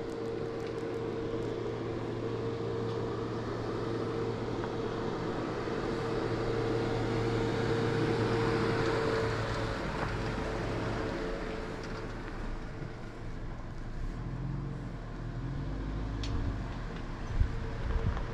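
Jeep Renegade small SUV driving over a dirt track, engine and tyres on the dirt growing louder as it approaches, loudest as it passes about eight to nine seconds in, then quieter as it slows to park.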